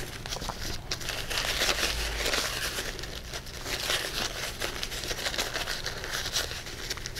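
Paper towel being crumpled and compressed by hand into a leg-muscle shape, a continuous crinkling and rustling made of many small irregular crackles.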